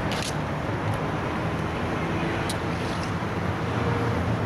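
Steady hum of road traffic, with a few sharp clicks over it.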